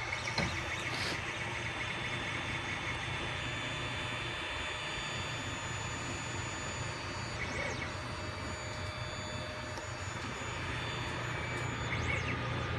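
Desktop 3D printer running a print at about twice normal speed. Its stepper motors drive the print head with a steady mechanical hum and several steady high whining tones, and short high chirps come now and then.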